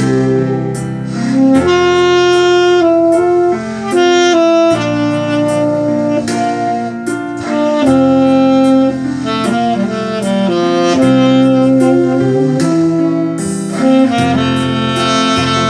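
Tenor saxophone playing a slow melody of held notes over instrumental accompaniment with a bass line.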